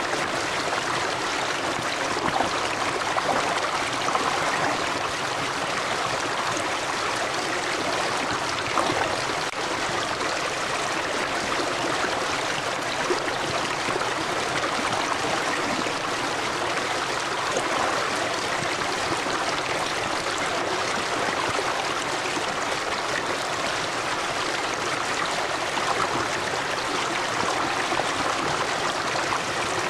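River water running steadily over rocks, a continuous rushing babble with small irregular splashes and gurgles.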